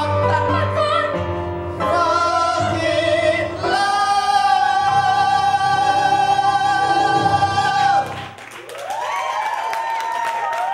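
A man and a woman singing an operatic duet over music, ending on a long held high note; about eight seconds in the music stops suddenly and the audience breaks into applause and cheers.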